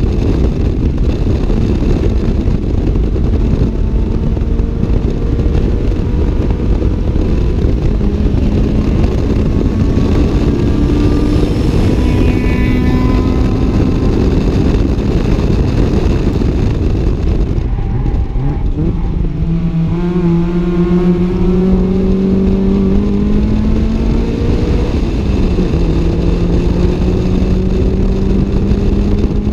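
Toyota AE86 Levin's 4A-GE 1.6-litre twin-cam four-cylinder, through a 5Zigen exhaust, heard from inside the cabin under hard driving, with heavy wind and road noise. The engine note climbs slowly through the revs, dips and wavers about two thirds of the way in, climbs again, then drops sharply once near the end as it shifts up a gear.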